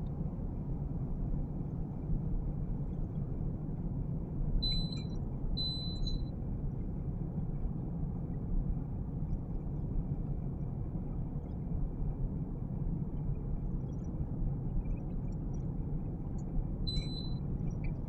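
Three short high beeps from a glass-top electric cooktop's touch controls, two about five seconds in a second apart and one near the end, over a steady low rumble.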